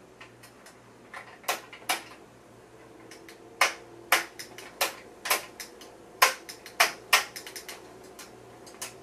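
IMSAI 8080 front-panel paddle toggle switches clicking as they are flipped by hand: sharp, irregular clicks, sparse in the first second and a half and then about one or two a second. A faint steady hum runs underneath.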